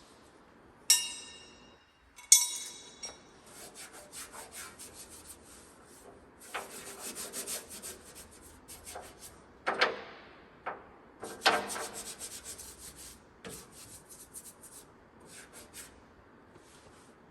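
Hand tools working on the steel of a combine tailboard. Two sharp, ringing metallic clinks come in the first few seconds, then runs of rapid rasping strokes with a few louder knocks, as bolts are worked loose.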